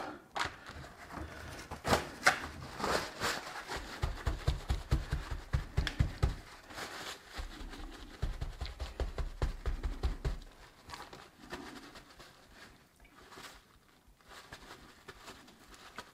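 Paper towel patting a wheel of cheese dry: a run of quick soft pats, about four a second, with rustling paper, dying away about ten seconds in.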